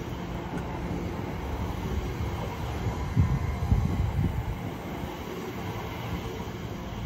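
Elizabeth line Class 345 electric train moving slowly alongside the platform, a steady low rumble of the train. A few louder low thumps come about three to four seconds in.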